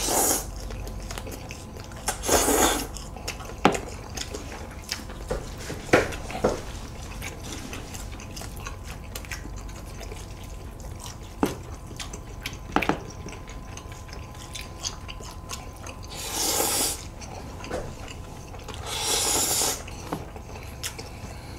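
Noodles slurped in four long sucks, with short sharp clicks of bites and chopsticks on bowls in between.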